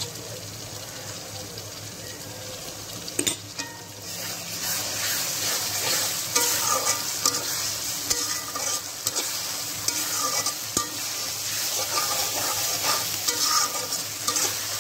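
Sliced onions with cumin, coriander, ginger and garlic pastes sizzling in hot oil in a metal kadai, while a spatula stirs and scrapes against the pan. The sizzling and scraping grow louder after about four seconds.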